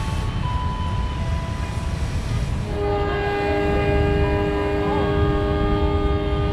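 Train at a station with a steady low rumble; about three seconds in, a train horn sounds a long, steady chord of several notes and holds through the end.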